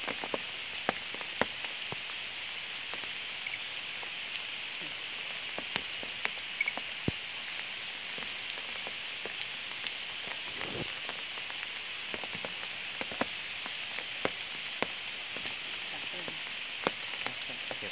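Light rain falling: a steady hiss with scattered sharp clicks of drops striking.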